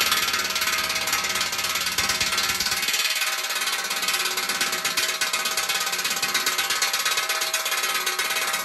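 Impact wrench hammering steadily on a bolt, with the steel of the cutter deck ringing along with the rapid blows. It cuts off abruptly right at the end, leaving the metal ringing.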